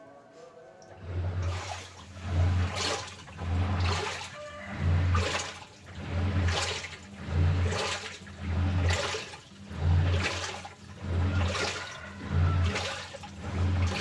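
Samsung top-loading washing machine agitating: its drive motor hums in regular pulses a little over once a second, each with water sloshing in the tub, starting about a second in.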